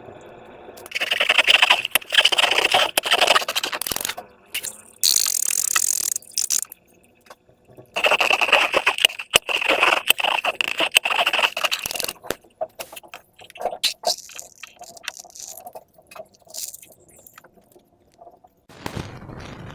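Slime-making materials being handled: two long stretches of scraping and rattling, with scattered clicks and a brief hiss between them.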